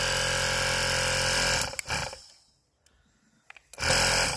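Mercedes-Benz W211 Airmatic air-suspension compressor, its electric motor and pump running steadily on directly applied power. It stops about a second and a half in, then runs again in two short spurts, near two seconds and about four seconds in, as the power leads touch its terminals.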